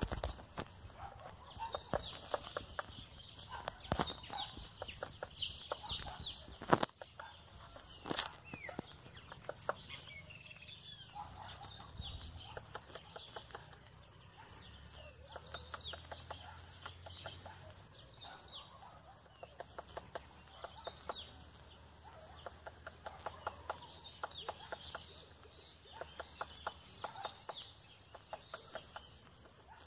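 Woodpecker hammering with its bill: sharp knocks, some single and some in quick runs, like hammer blows. High bird chirps run through it.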